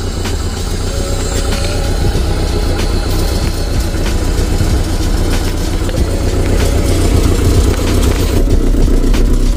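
1994 Toyota MR2's 2.2-litre four-cylinder engine running, growing gradually louder.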